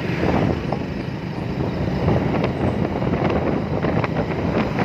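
Wind buffeting the microphone of a rider on a moving motor two-wheeler, mixed with the bike's engine and road noise as a steady rush.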